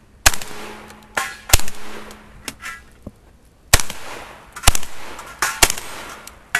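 Benelli shotgun firing a string of shots: about six loud blasts at uneven intervals of roughly a second, each trailed by a short echo, with a few fainter reports in between.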